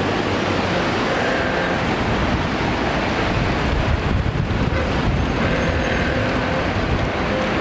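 Street traffic dominated by an articulated city bus's engine running as it turns past close by: a steady rumble of engine and tyres.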